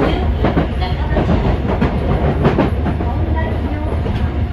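A Yokohama Municipal Subway Blue Line 3000A-series train running at speed, heard from inside its rear driving cab: a steady rumble of wheels on rail, with irregular clacks as the wheels pass over rail joints and switches.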